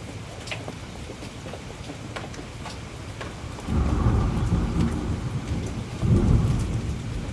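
Steady heavy rain with individual drops pattering close by, then a thunder rumble that rolls in about halfway through and swells a second time, louder, near the end.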